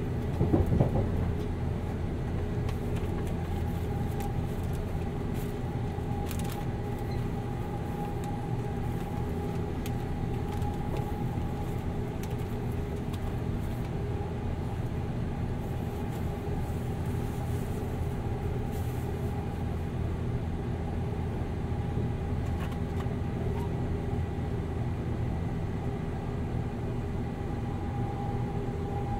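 Cabin running sound of a JR 189 series motor car on the move: the MT54 traction motors and gears hum at a steady pitch over a continuous wheel and track rumble, with a brief louder clatter about a second in. Recorded binaurally inside the car.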